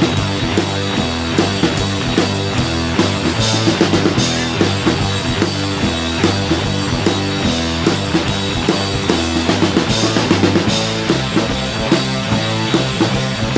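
Background music: an upbeat rock-style track with a steady drum beat and bass line.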